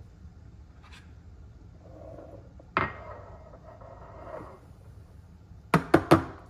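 Cup and steel milk pitcher handled on a stone countertop. A sharp clack about three seconds in is followed by a second or so of scraping. Near the end comes a quick run of three or four hard knocks as the pitcher is knocked against the counter.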